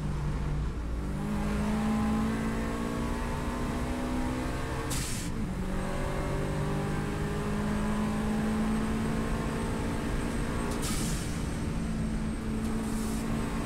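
Onboard sound of a Subaru WRX STI's turbocharged flat-four engine under full throttle on track, its note climbing steadily in pitch. About five seconds in the pitch drops and climbs again as it upshifts, with a short hiss at the shift, and another burst of hiss comes near the end.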